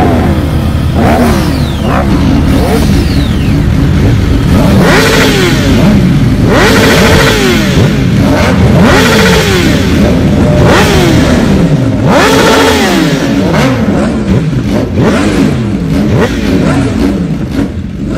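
Several motorcycle engines revving over and over, their pitch climbing and dropping about once a second, with the revs of different bikes overlapping.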